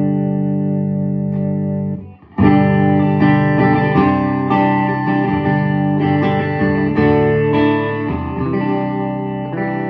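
Electric guitar played clean through a 1960s Stevens Bass Amp, a hand-wired Fender Bassman clone with four 6L6 tubes and a cabinet of six 10-inch Audax speakers. A chord rings out, is cut off about two seconds in, then a new chord is struck and more chords and single notes follow.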